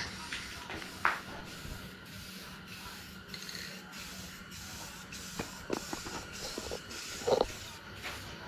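Aerosol spray can hissing as paint is sprayed in passes, with short breaks in the spray. A few light clicks and knocks come through, the loudest about a second in and again near the end.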